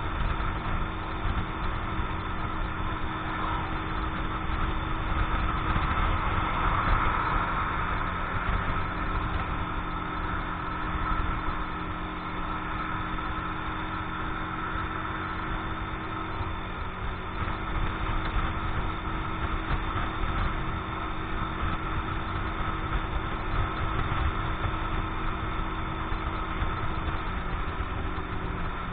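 Keeway X-Light 125 motorcycle engine running steadily at cruising speed, a new engine being run in, with wind rushing over the microphone. The engine note shifts slightly near the end.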